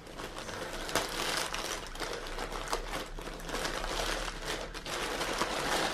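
Crinkling and rustling of a compostable plastic mailer bag being torn open by hand, with a few sharp crackles, as a clear plastic bag of fibre is pulled out of it.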